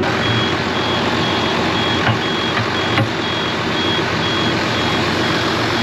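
Diesel being pumped through a fuel nozzle into a tractor's tank, over a steady mechanical running noise, with a high electronic beep repeating about three times a second.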